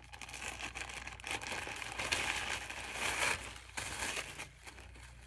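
Packaging crinkling and rustling as a shirt is unwrapped and handled, busiest about two to three seconds in.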